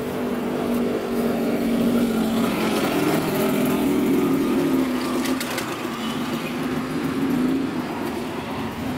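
Motorcycle engines running in street traffic: a steady hum, with one engine swelling and shifting in pitch a couple of seconds in as it passes.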